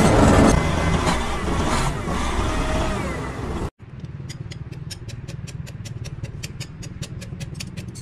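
Heavy machinery running loudly, cut off abruptly a little under four seconds in. After the cut, a quieter low hum with a rapid, even clicking, about five clicks a second.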